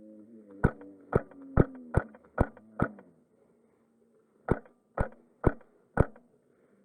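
HPA-powered Wolverine MTW airsoft rifle firing single shots, each a sharp pop. Six come about two a second, then after a short pause four more at the same pace.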